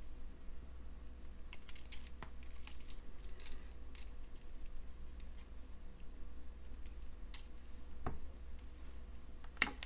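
Faint, scattered clicks and small metal taps of jewelry pliers and wire as a wire tail is wrapped around a loop, with one sharper click near the end.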